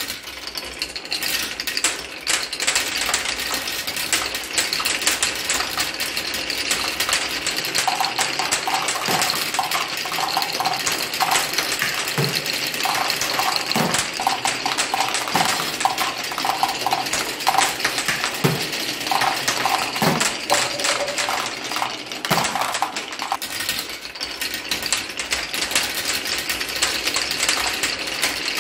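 Many marbles rolling down wooden marble-run chutes, clicking and clattering against the wood and each other and spilling into plastic toy dump truck beds. A humming tone comes and goes in the middle, with a few heavier knocks.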